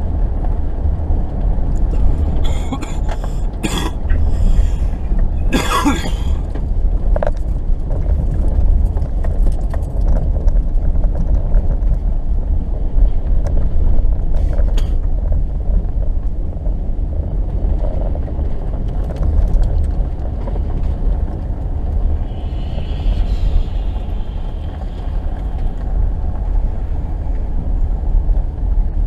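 Low steady rumble of a 2018 Subaru Forester driving slowly over snowy pavement, heard from inside the cabin. A few short sharp noises come between about three and six seconds in.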